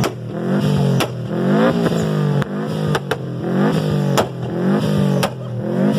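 Turbocharged Subaru Impreza WRX flat-four revved up and down again and again, with a sharp exhaust bang roughly once a second as it backfires and spits flame from the tailpipe.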